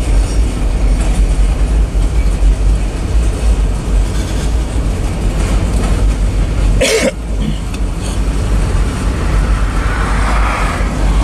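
Freight cars of a manifest train, covered hoppers and a tank car, rolling past close by with a steady, loud, low rumble of wheels on rail. A brief sharp noise cuts through about seven seconds in.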